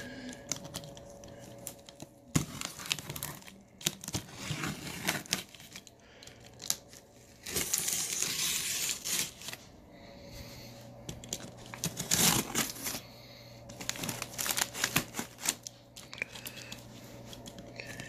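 Cardboard shipping box being cut and pulled open with a box cutter: irregular scraping and clicking, packing tape tearing and cardboard crinkling. A longer stretch of tearing comes about eight seconds in.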